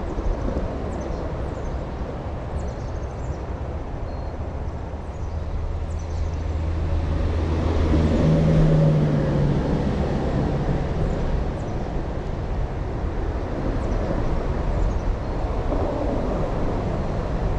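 Traffic from a nearby road: a steady rumble, with one vehicle swelling up and passing about eight to nine seconds in. Faint high chirps come through the rumble.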